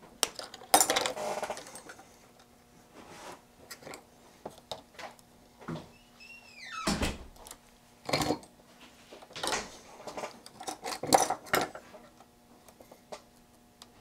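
Scattered clinks, taps and knocks of small tools and metal parts handled on an electronics workbench, with a short squeak about six and a half seconds in, over a faint steady hum.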